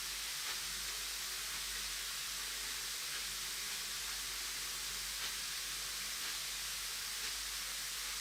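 Large bath bomb fizzing as it dissolves in water: a steady hiss with faint tiny crackles.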